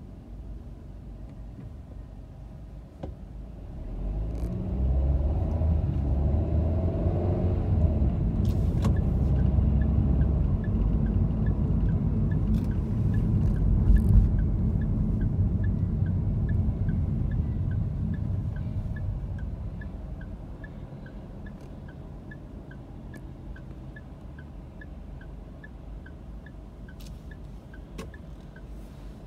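Car engine and tyre rumble heard from inside the cabin, swelling as the car pulls away about four seconds in and easing off again toward a stop after about twenty seconds. From about nine seconds on, a turn-signal indicator ticks steadily, roughly one and a half ticks a second.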